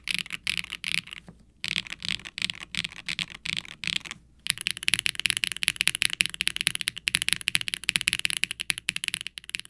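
Typing on a HIBI June mechanical keyboard with HMX Poro linear switches, an FR4 plate and GMK keycaps, giving a clacky, bright keystroke sound. It pauses briefly about a second in and again about four seconds in, then runs faster and denser until it stops just before the end.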